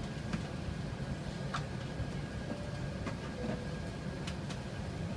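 Steady low rumble and hiss of an Airbus A380's passenger cabin while the airliner taxis, with a few faint light clicks scattered through it.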